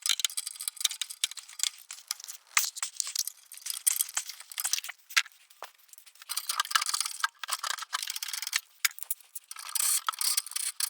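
Wrench and socket clicking and rattling on metal in irregular runs as the nuts holding the catalytic converters to the exhaust are worked off.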